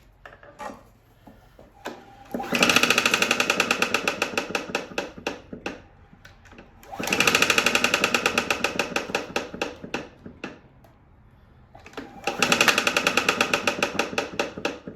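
Three pull-start attempts on a PowerSmart 170cc overhead-valve lawnmower engine. Each pull spins the engine with a burst of rapid, even ticking that fades away without the engine firing. The engine turns with no resistance: it has zero compression, which the owner takes for a broken connecting rod.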